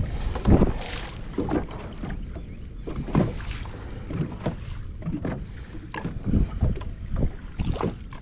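Choppy, wind-driven water slapping against a kayak's hull in irregular thumps and splashes, with wind buffeting the microphone.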